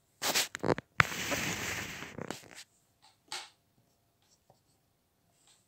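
Small plastic toy figurines being handled on a tabletop: a few short rustles, a sharp knock about a second in, then a rubbing, scraping sound for over a second, and a faint tap later.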